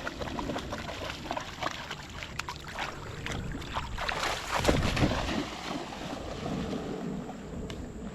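Water splashing and stirring in a shallow river, with scattered knocks and clatters that are loudest about four to five seconds in. Wind buffets the microphone.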